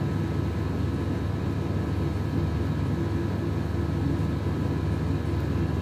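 Steady low mechanical hum and rumble with a few faint steady whining tones above it, unchanging throughout.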